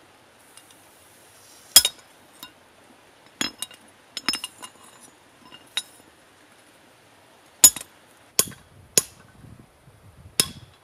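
Hand hammer striking metal on an anvil in separate, uneven blows with a sharp metallic ring, about eight to nine strikes, some light taps and some harder blows.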